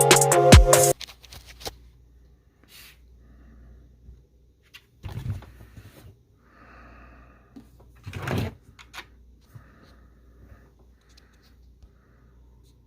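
Background music cuts off about a second in, followed by faint scratching and handling noises of drawing on paper, with two louder short rustles or knocks about five and eight seconds in.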